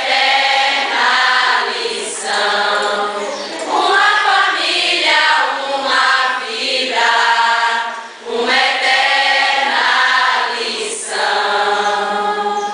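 A large mixed group of young voices singing together as a choir, in long held phrases with short breaks between them.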